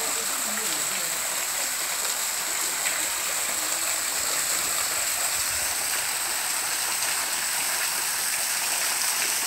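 Water of a small waterfall falling in thin streams from a rock grotto into a pool below, making a steady splashing hiss.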